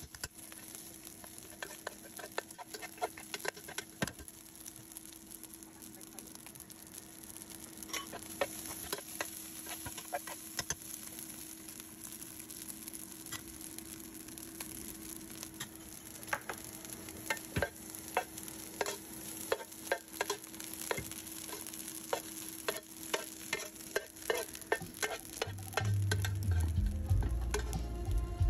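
Fried rice sizzling in a pan while a metal spoon stirs and scrapes it, with irregular clicks of the spoon against the pan. Low music comes in near the end.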